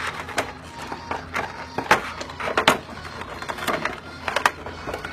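Cardboard and plastic box packaging crackling and snapping irregularly as it is worked open by hand to get the cards out. The sharpest snaps come about two seconds in and again just before the end.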